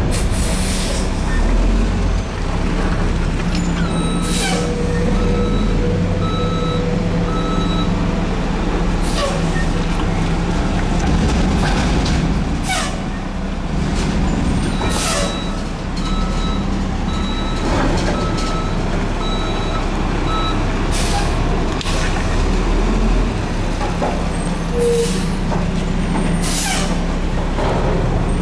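Mack MR garbage truck's diesel engine running steadily while the truck manoeuvres, its reverse alarm beeping in several stretches at about one beep a second. Short sharp air hisses from the air brakes come every couple of seconds.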